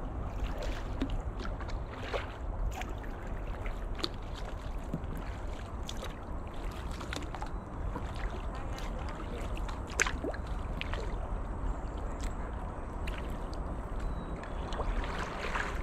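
Kayak paddles dipping into the river, with irregular small splashes and drips of water off the blades, over a low steady rumble; one sharper splash comes about ten seconds in.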